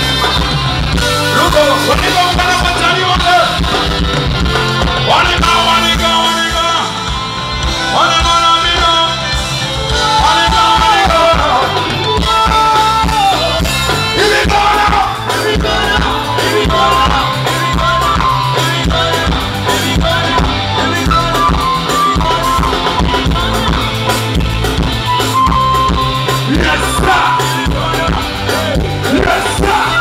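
Live band playing an upbeat song: drum kit keeping a steady beat under bass, guitars and a wandering melody line, loud through the PA.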